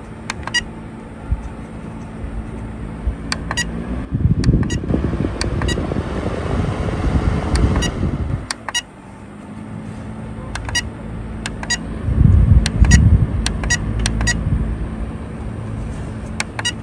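Rechargeable camping fan running with a steady motor hum, while its control buttons are pressed with short beeps. About four seconds in the airflow swells to a loud rush, drops back a few seconds later, and rushes again around twelve seconds in as the wind speed setting is changed.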